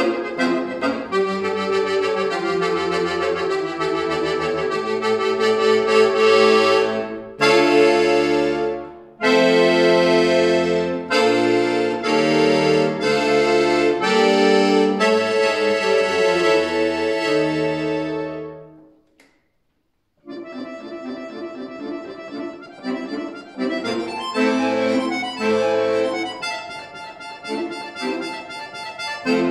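Scandalli piano accordion played solo: sustained full chords over bass notes in a loud passage that dies away to a brief silence about two-thirds of the way through. The playing then resumes, quieter, with shorter, quicker notes.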